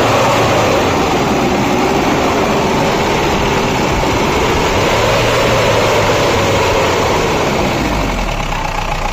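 Mahindra Bolero diesel engine being revved, its pitch falling from a high rev, climbing again midway and settling back toward idle near the end. The alternator is loaded with the headlights on, and the newly fitted alternator belt is not squealing or slipping.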